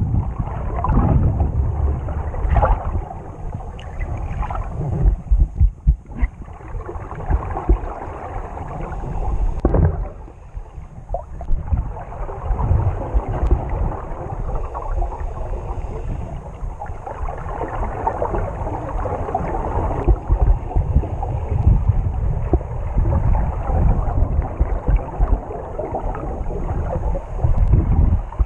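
Muffled underwater water noise heard through a submerged camera: low, rumbling churn of water that surges and eases irregularly as the snorkeler swims and kicks.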